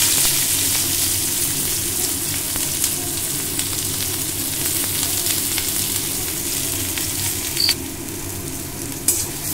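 Sliced onion sizzling in hot vegetable oil in a kadai, a steady frying hiss that eases a little. Near the end a spatula stirs the onion, with a few short scraping clicks.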